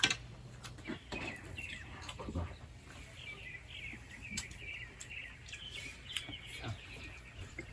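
Small birds twittering: a run of quick, high chirps, with a sharp click at the start and a few faint clicks.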